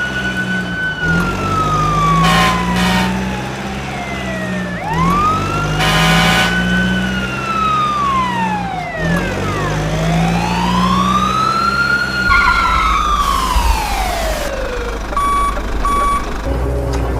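Fire engine siren wailing in three slow rises and falls over a steady low drone, with two short beeps near the end.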